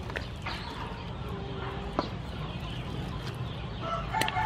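A chicken clucking, its call plainest near the end, with a few sharp clicks like a wooden ladle knocking a metal pot.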